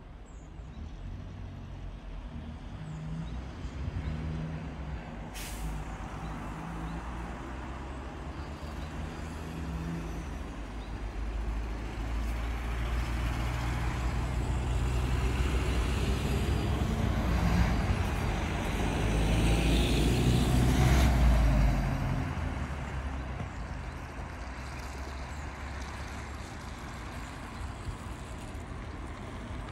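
Street traffic: a minibus engine running close by, growing louder to a peak about two-thirds of the way through, then fading back to a low hum. There is a single sharp click about five seconds in.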